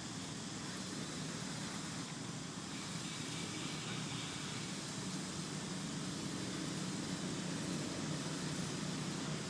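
Steady low hum over a background hiss, slowly getting louder, with no distinct events.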